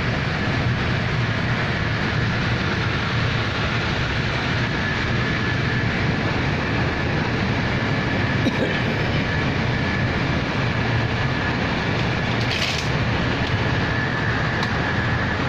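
A passenger train running at speed, heard from inside the carriage: a steady, dense rumble and rush of wheels on the rails, with a faint high whine held throughout. A short hiss cuts in about twelve seconds in.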